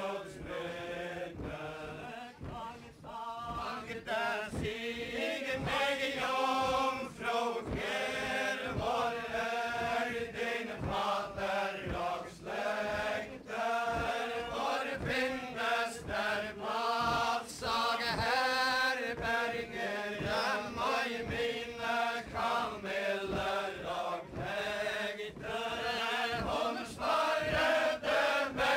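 Group of voices singing a Faroese chain-dance ballad in unison, verse after verse. A regular low thud of dancers' stepping feet, about twice a second, runs beneath the song.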